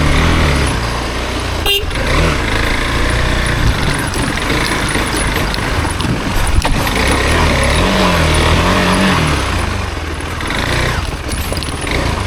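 Single-cylinder adventure/dirt motorcycle engine running on an off-road ride, its pitch rising and falling with the throttle twice, near the start and again about eight seconds in.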